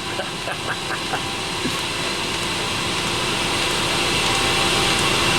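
Eberspacher D1L diesel air heater running, its combustion-air fan and burner making a steady whirring rush with a few light ticks in the first second. Combustion has steadied after a spell of popping and banging.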